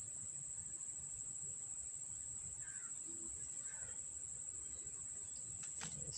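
Insects buzzing steadily at a single high pitch, with a low outdoor rumble beneath. There are a few faint chirps in the middle and one short sharp click near the end.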